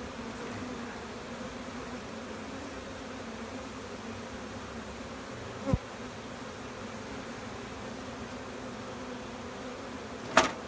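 A swarm of honeybees buzzing in a steady hum, disturbed while being moved into a hive box. A dull thump comes a little past halfway, and a sharp knock, the loudest sound, comes near the end.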